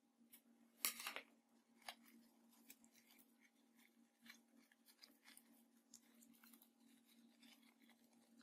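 Scissors snipping through a rubber balloon about a second in, then faint small clicks and rustles of fingers handling the cut balloon pieces, over a faint steady hum.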